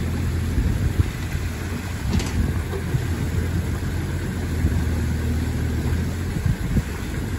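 Bobcat E35 mini excavator's diesel engine running steadily, with water rushing through the opening in the beaver dam.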